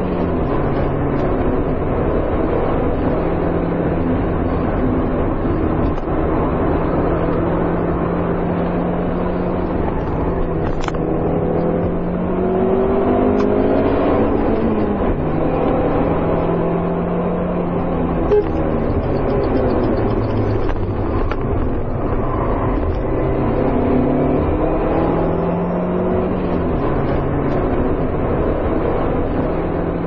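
Car engine running under load, its pitch climbing and then dropping back several times, as when accelerating through gear changes.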